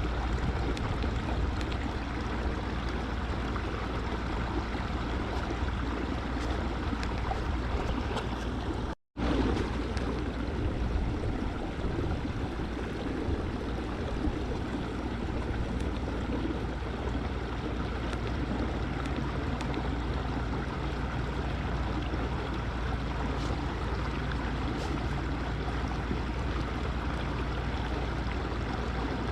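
Steady rushing noise of water and wind. It cuts out completely for a moment about nine seconds in.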